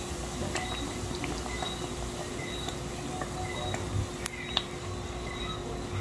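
Hot oil bubbling and sizzling around a round of dough deep-frying in a pot, with scattered sharp pops and crackles.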